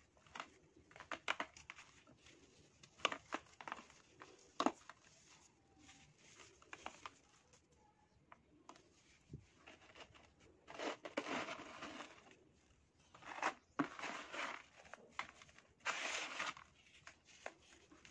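Dry pressed sand crumbled between the fingers, with crisp crackles in the first few seconds. After that come three longer rushing spells as loose sand crumbles and falls into the tub.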